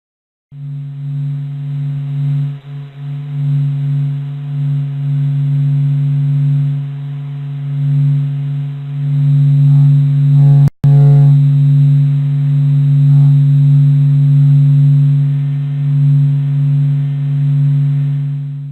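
A steady, low, otherworldly electronic hum built from data. It is a strong deep tone with a fainter higher overtone, swelling slightly in loudness, and it cuts out for an instant about halfway through.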